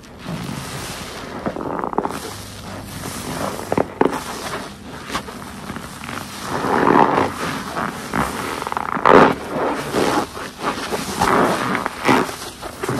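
Wet sponge full of soapy detergent water being squeezed over and over: a run of squelching, gurgling squishes, loudest about two-thirds of the way through.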